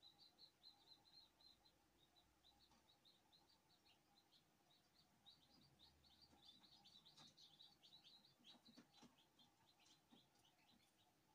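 Newly hatched chicks peeping softly: a continuous stream of short, high, faint peeps from the huddled brood, growing busier around the middle.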